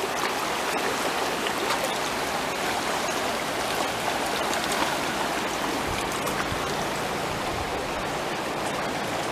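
Steady rush of a wide river flowing fast and high, the current churning in riffles along the bank.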